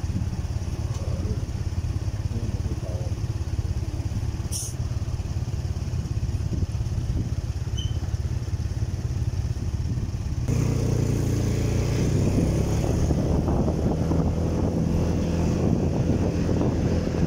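Motorcycle engine running steadily, with a brief click a few seconds in. About ten seconds in, the engine suddenly gets louder.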